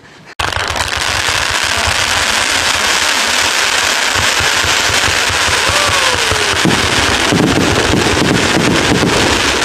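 A 1088-shot firework cake firing a rapid, unbroken barrage of shots and crackling, which starts suddenly about half a second in. A short falling whistle sounds a little past the middle.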